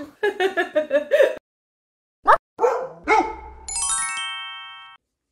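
A short animated intro sting: a quick rising whoosh, a dog's bark, then a fast run of chime notes that rings for about a second and stops. Before it, about a second of squeaky, voice-like sounds that cut off abruptly.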